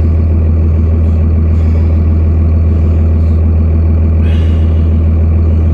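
A vehicle engine idling steadily: a deep, even hum.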